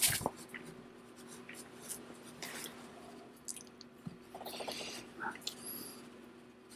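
Quiet clicks and rustling close to a microphone, over a steady low electrical hum.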